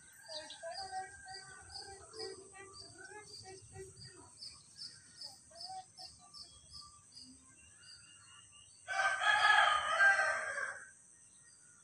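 A rooster crows once, loud and about two seconds long, some nine seconds in. Before it a small bird chirps over and over, about twice a second.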